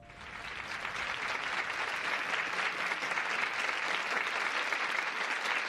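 Studio audience applauding, many hands clapping at once. It starts suddenly and swells over the first second or so, then holds steady.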